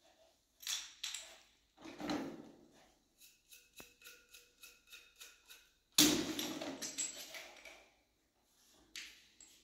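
Plastic hand-shower spray head and its flexible hose being handled and screwed together: knocks and rubs, a run of light clicks about three a second, then a louder stretch of rubbing and rustling of the plastic hose and head.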